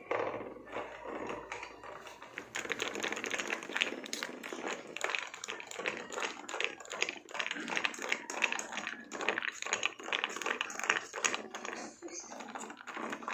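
Metal spoon clinking and scraping against a glass mug while stirring, a fast, uneven run of small clicks that starts a couple of seconds in.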